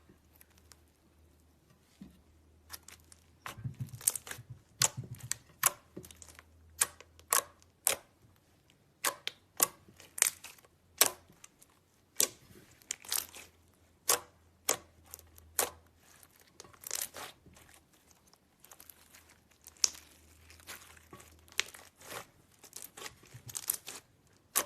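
Slime being squeezed and stretched by hand, giving irregular sharp pops and crackles.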